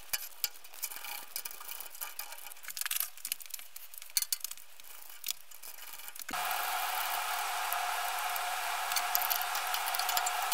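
Steel clamp hardware and parts being handled on a milling machine table, making scattered light metallic clicks and clunks. About six seconds in, a steady whirring machine hum with a constant whine starts and keeps on.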